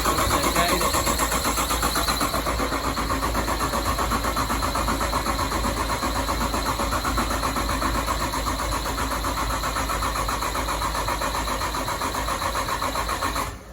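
Nissan RB30DET straight-six engine being turned over on the starter motor without firing: a steady, rapidly pulsing cranking that goes on for over ten seconds and stops abruptly near the end.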